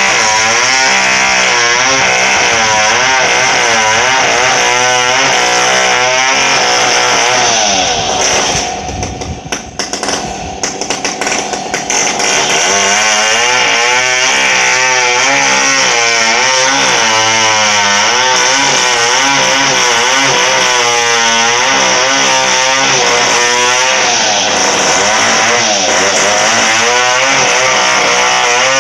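Two-stroke chainsaw running at high revs, its pitch rising and sagging repeatedly as it works through wood. About eight seconds in it drops back and goes quieter for a few seconds, then picks up again.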